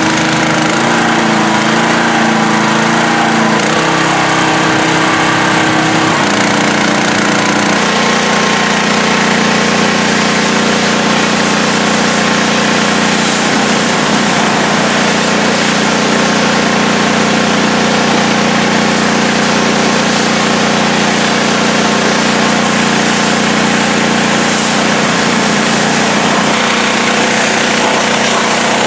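Gas engine of a Hot Boss 4000 PSI hot water pressure washer running steadily, its hum shifting pitch in steps during the first several seconds. From about eight seconds in, the hiss of the high-pressure spray from the wand joins the engine sound.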